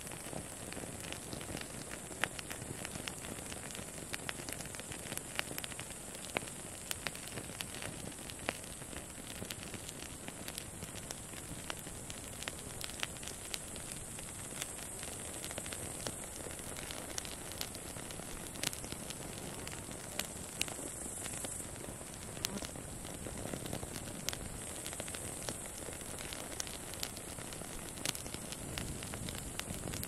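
Wood campfire of upright split logs crackling, with irregular sharp pops over a soft steady hiss of flame. Behind it, a steady high-pitched chirring of grasshoppers runs throughout.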